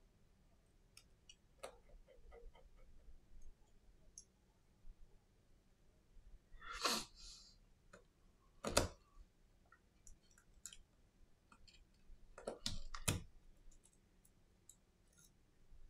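Faint clicks and ticks of a precision screwdriver and small metal parts on an opened iPhone SE (2020), as screws and a bracket are worked. A handful of louder knocks and scrapes come as the phone is handled: one about seven seconds in, one near nine seconds, and a quick pair near thirteen seconds.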